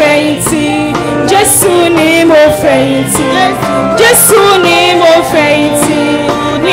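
A choir singing a Yoruba hymn in parts, the voices wavering with vibrato and sharp on the sibilant consonants, over held keyboard chords.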